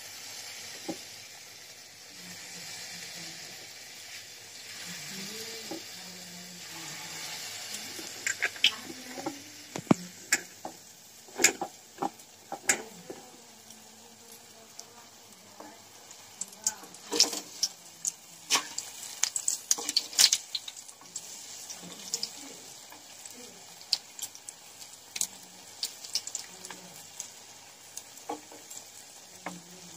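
Palm-fruit (tal) batter fritters deep-frying in hot oil over a low flame: a steady sizzle at first, then sharp pops and crackles scattered through the rest.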